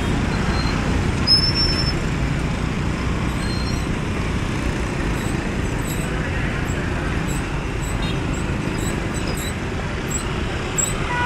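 Dense street traffic of motorbikes and scooters moving slowly past, a steady engine rumble. A short high squeal about a second in stands out above it, with faint high chirps later.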